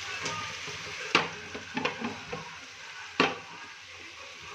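Spiced potatoes sizzling in oil in a cooking pan, with a spatula knocking against the pan: two sharp knocks, about a second in and just after three seconds, and a few lighter taps between them.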